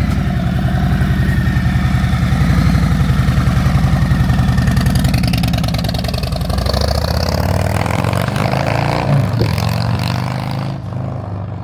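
Harley-Davidson Milwaukee-Eight 114 V-twin running loud through Tab Performance mufflers with the baffles removed, cores drilled and packed, as the bike rides past. The exhaust note shifts in pitch around the middle and fades near the end.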